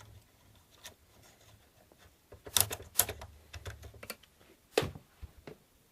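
Irregular clicks and taps of Xbox 360 casing parts and clips being handled and pried off during disassembly, a cluster of sharper clicks in the middle and one more near the end.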